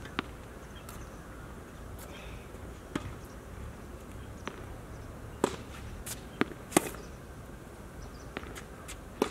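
Tennis rally on a hard court: sharp separate pops of racket strings striking the ball and the ball bouncing on the court, spaced about a second apart, with a quicker, louder run of them a little past halfway.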